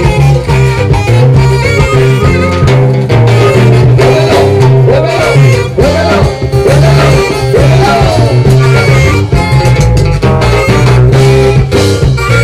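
Loud Latin dance music played by a live norteño band: a steady bass line and drums under a melody that bends up and down in pitch.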